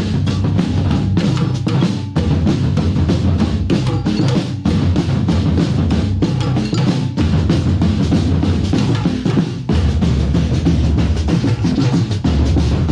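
A drum band of large bass drums and other drums played with sticks, rehearsing a tune together in a loud, dense, continuous rhythm.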